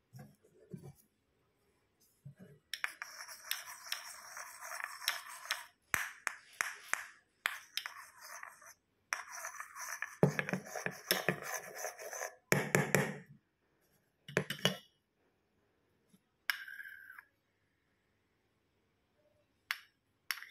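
A metal spoon stirring and scraping a thick white slime mixture in a plastic bowl, in stretches of scraping with sharp clicks of the spoon against the bowl, then only a few short scrapes in the second half.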